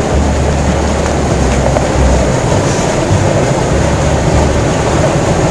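Steady rush of fast-flowing water in a concrete irrigation channel, with wind rumbling unevenly on the microphone.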